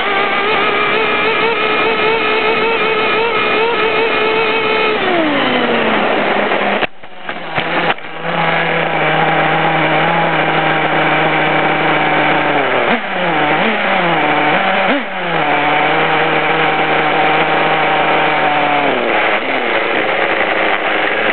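OFNA Dominator RC truck's .21 Hyper Turbo nitro engine, a small two-stroke glow engine, heard up close from on board. It runs at high revs and falls off about five seconds in, then cuts out briefly. It then runs on at a lower steady pitch with two quick throttle dips and recoveries, and drops again near the end.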